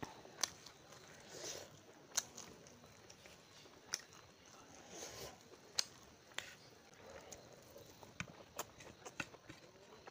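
Close-miked chewing of a person eating with her fingers, with a sharp lip-smacking click every second or two and softer wet mouth sounds between them.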